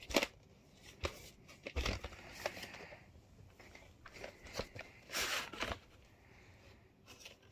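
Handling noise from a VHS cassette in its cardboard sleeve: scattered clicks and knocks of the plastic tape and the card being turned over, then a short scraping slide a little over five seconds in as the cassette comes out of the sleeve.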